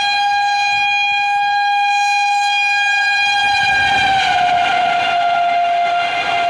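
Indian Railways locomotive horn sounding one long steady blast that drops in pitch about four seconds in as the train speeds past, with the rushing rumble of the passing train rising at the same time.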